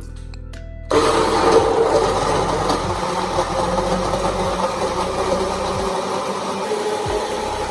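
An electric kitchen appliance motor switches on abruptly about a second in and runs steadily.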